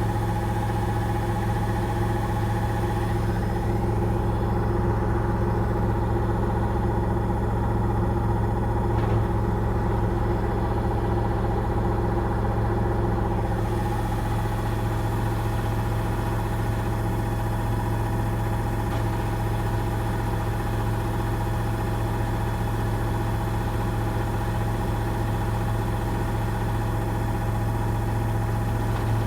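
Gorenje washing machine in its final spin: the drum and motor turning at a steady high speed, giving a constant hum with several held tones over it.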